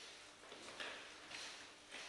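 Faint steps and shoe scuffs on a wooden floor from several people stepping through longsword drills, coming irregularly about twice a second.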